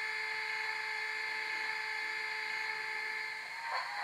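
Bachmann Class 25 model locomotive's DCC sound decoder playing a steady high-pitched diesel whine through the model's small speaker. Near the end the sound turns rougher and pulsing.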